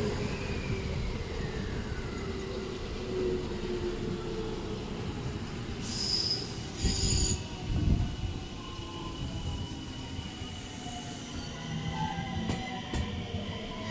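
A 223 series 1000 electric train running on the rails, a steady low rumble of wheels. A whine falls in pitch over the first couple of seconds, and there are two short high-pitched wheel squeals about six and seven seconds in.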